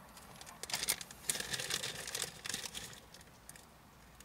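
A foil snack bag of popcorn crinkling and rustling as it is handled, in a run of short rustles over the first three seconds or so, loudest about halfway through.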